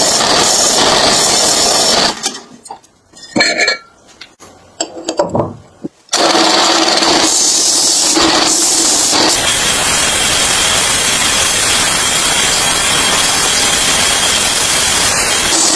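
A power tool abrading a surface, rubbing and grinding with a steady loud hiss. It stops about two seconds in, leaving a few short knocks and scrapes, then starts again about six seconds in and runs on.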